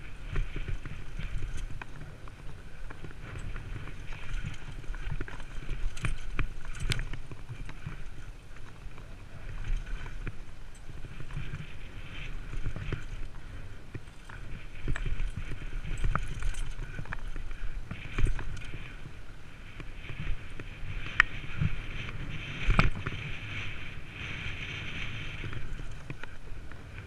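Downhill mountain bike ridden fast over a rough dirt trail: a continuous rumble and clatter of tyres and bike on the ground, broken by several sharp knocks from hits on the trail, the loudest about two-thirds of the way through.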